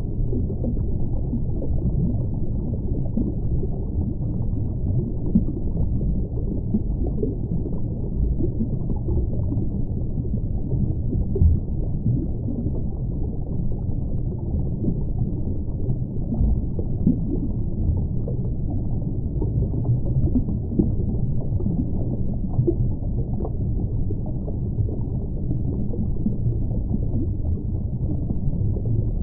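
Underwater ambience picked up through a camera housing: a steady, muffled low rumble of water noise with faint scattered crackles.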